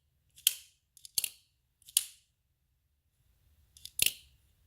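Benchmade Contego folding knife flicked open and shut, its AXIS lock and blade snapping with sharp metallic clicks that ring briefly, four times.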